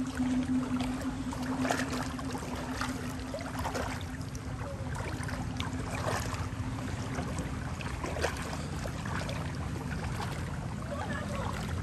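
A motor running with a steady drone; its steady hum fades away over the first half. Short light knocks come now and then over it.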